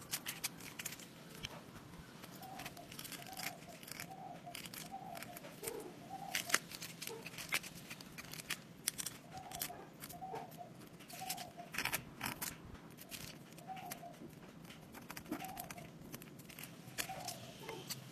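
A wooden spatula scraping and tapping against an aluminium frying pan in irregular clicks while it stirs sugar melting into caramel. Behind it, a bird calls faintly with short repeated calls.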